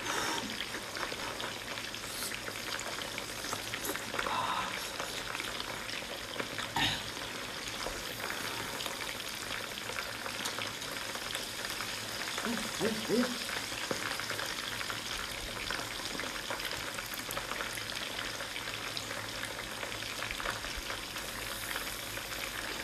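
Wet crackling and squelching of sea-snail meat coated in spicy sauce being pulled from its shell and handled close to the microphone. A short hum from the eater comes about 13 seconds in.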